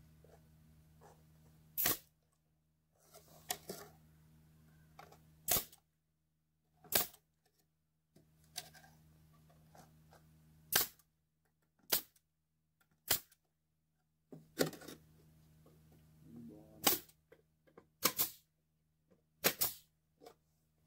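Brad nail gun firing nails into wooden boards: about a dozen sharp shots, one every one to two seconds, some in quick pairs, with fainter knocks of the boards being handled between them.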